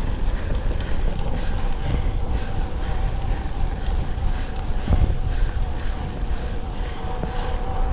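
Wind buffeting the microphone of an electric mountain bike ridden fast, with the steady whine of its assist motor, which is running on reduced assistance. There is a single knock about five seconds in.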